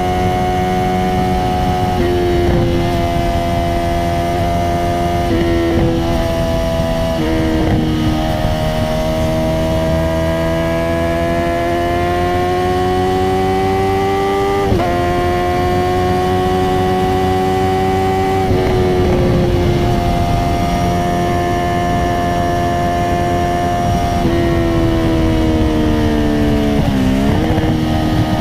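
Honda CBR650R inline-four engine running through a straight-through Akrapovic titanium exhaust with no dB killer, under way. The engine note holds steady or climbs slowly, then steps down sharply several times as gears change, with a quick deep dip and recovery near the end.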